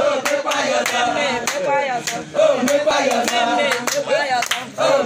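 Voices singing a song in call-and-response style to steady rhythmic hand claps, about three claps a second.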